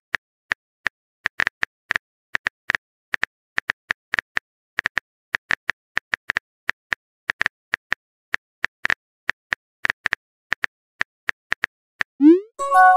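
Keyboard tap sound effects of a texting app, short sharp clicks at an uneven pace of about three a second as a message is typed letter by letter. Near the end the typing stops and a short rising swoop and a chime play as the message is sent.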